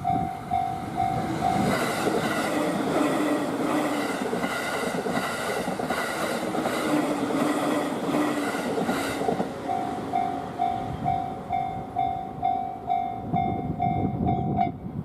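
Level-crossing warning bell dinging about two and a half times a second while a JR Takasaki Line train passes through, its wheels clacking in a steady rhythm over the rail joints. The bell is drowned out while the train goes by, rings on once it has cleared, and stops near the end.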